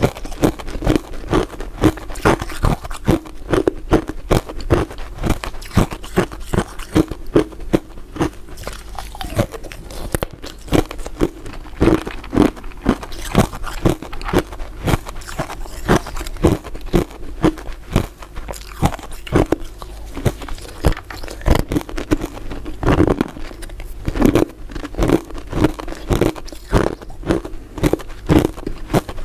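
Someone biting and chewing crisp crystal ice dessert pieces: a steady run of sharp crunches, several a second.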